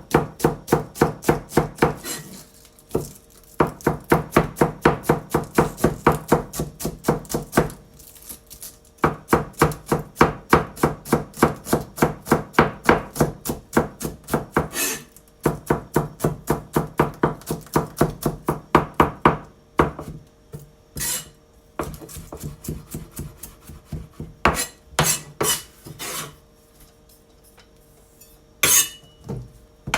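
Kitchen knife finely shredding cabbage on a cutting board: quick, even chopping strokes of about five a second in long runs with short pauses. In the last third the strokes thin out to scattered single knocks.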